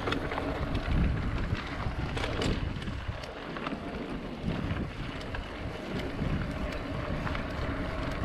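Wind rushing over the microphone and the low rumble of a mountain bike rolling over a dirt trail, with scattered sharp clicks.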